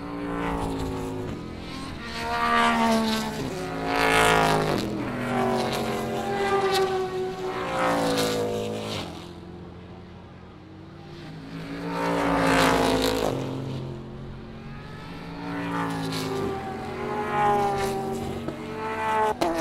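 Grand-Am sports racing cars accelerating out of an infield corner one after another, their engines revving up through the gears with repeated upshifts. About six loud passes come and go, and there is a single sharp click near the end.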